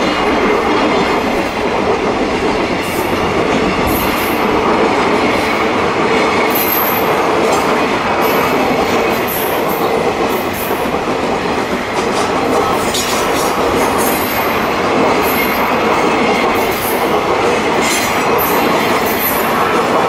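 A container freight train's flat wagons roll past at close range, with a steady loud rumble and clatter of wheels on the rails. Short high-pitched wheel squeaks come through now and then.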